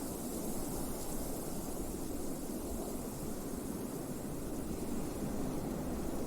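Blizzard wind blowing in a steady, dense rush, with no gusts standing out.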